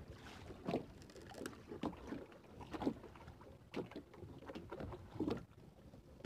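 Irregular knocks and splashes against a small boat, one every second or so, as a fishing net is hauled in by hand over the side.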